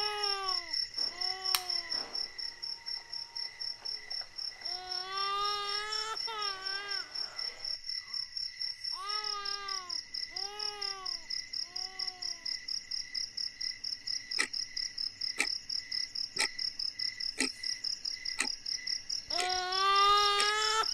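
A young woman sobbing and wailing in several bouts of long, arching cries, over a steady chirping of crickets. In the second half, between the bouts, come five sharp clicks about a second apart.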